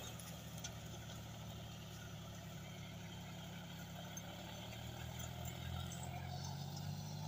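John Deere tractor's diesel engine running steadily under load as it pulls a mounted disc harrow through the soil: a low, even hum.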